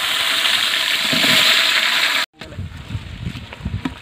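Onions sizzling loudly in hot oil with whole spices in an aluminium pot, a steady hiss. A little over two seconds in it cuts off suddenly, followed by quieter irregular knocking as a ladle stirs the onions in the pot.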